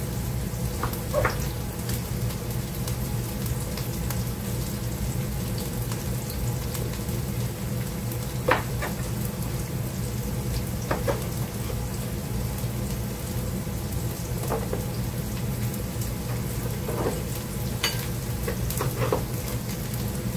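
Onions sautéing in an electric skillet, sizzling steadily, with a handful of sharp knife knocks on a cutting board as eggplant is diced.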